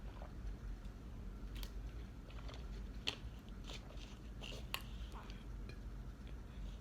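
A person chewing and biting into fast food, with scattered crisp crunches and mouth clicks, the sharpest about three seconds in and a pair near the five-second mark.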